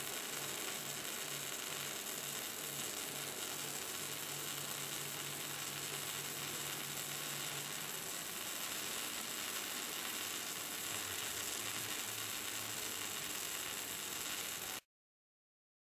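Arc welding a full-penetration butt weld on a 1220 mm diameter, 20.5 mm wall steel tube: a steady hiss, with a low hum pulsing under it about twice a second for much of the time. The sound cuts off abruptly near the end.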